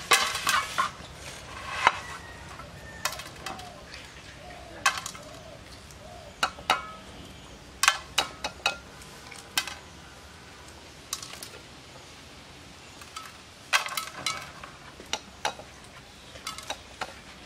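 Boiled eggs being cracked and peeled by hand over stainless-steel plates: irregular sharp taps and clinks of eggshell on metal, with shell bits dropping onto the plate.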